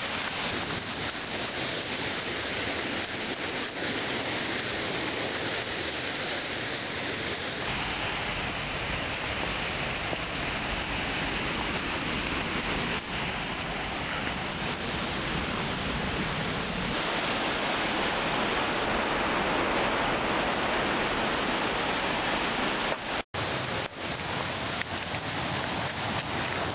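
Steady rushing of a woodland stream running over rocks, growing somewhat louder past the middle, with the sound cutting out for an instant about 23 seconds in.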